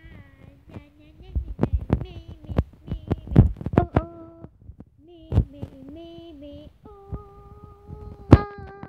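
A girl singing in held, mostly level notes, wordless or nearly so, with a slight waver near the end. Sharp knocks from the handheld phone being bumped and handled cut in, clustered in the first half and once more near the end.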